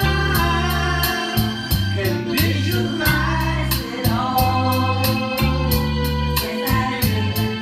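A woman and a man singing a duet into microphones over an amplified karaoke backing track with organ and a steady beat.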